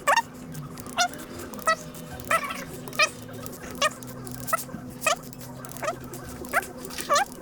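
An animal giving short, high-pitched cries over and over, about one and a half a second, each rising or falling briefly.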